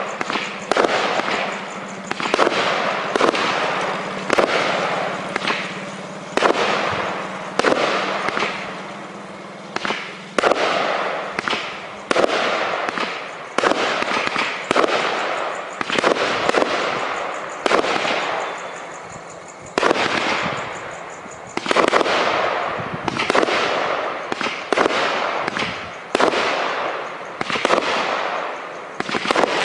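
84-shot firework cake firing a rapid succession of shots, roughly one a second, each a sudden report that fades away before the next.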